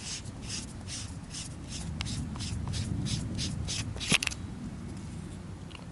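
Armytek Partner A2 flashlight's tail cap being unscrewed by hand: a rhythmic scratchy rasp of the threads, about four strokes a second, then a sharp click at about four seconds in as the cap comes free.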